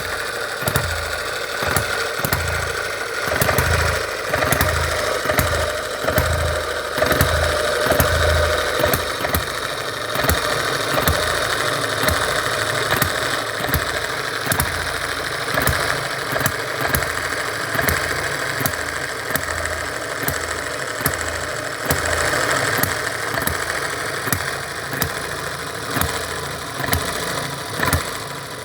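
M91 Microcosm model hit-and-miss gas engine running: sharp firing pops at uneven intervals, each with a low thump, as it fires and then coasts between power strokes.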